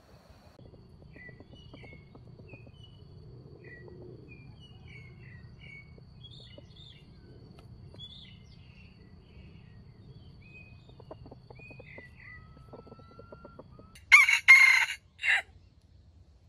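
A red junglefowl rooster crows once, a short loud crow about a second and a half long near the end. Before it, small birds chirp faintly.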